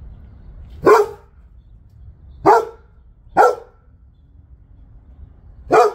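A dog barking four times: short, single, deep barks, the first about a second in and the last near the end.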